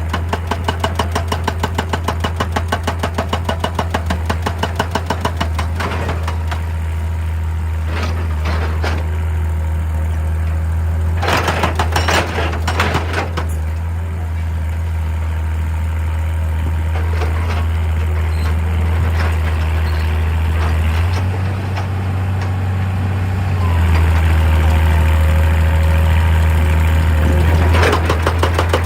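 Excavator diesel engine running steadily, working harder and louder for the last few seconds. Several sharp clanks of metal and rock are heard, with a short run of them near the middle.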